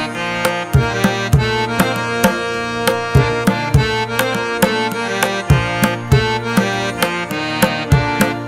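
Background music: a melody of held notes over a steady percussion beat, about two strikes a second.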